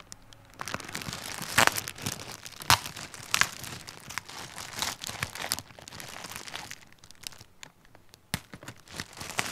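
Thick plastic wrapping crinkling and tearing as it is cut open with scissors and pulled apart by hand, with sharp crackles scattered through and a quieter moment about three quarters in.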